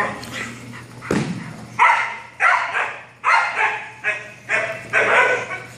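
Seven-month-old Belgian Malinois puppy barking at a decoy in protection training, about eight sharp barks in quick succession.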